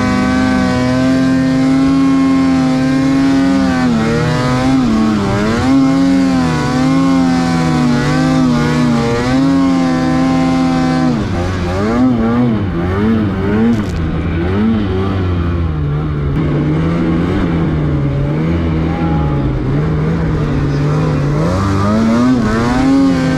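Snowmobile engine running hard through deep powder, its pitch dipping and climbing as the throttle is worked. About halfway through it drops to a lower, wavering pitch, and it climbs again near the end.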